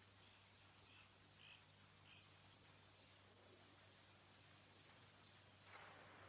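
Faint, regular chirping of a cricket, about two high chirps a second, stopping shortly before the end.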